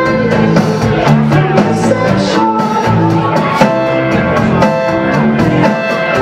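Live indie rock band playing a song, with electric guitar and drums over changing low notes.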